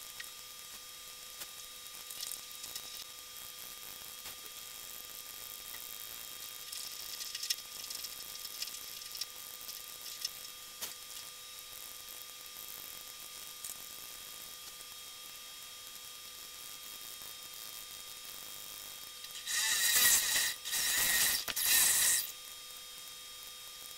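Steady electrical hum with hiss, broken by scattered faint clicks. Near the end comes a louder scratchy rasp in three short bursts.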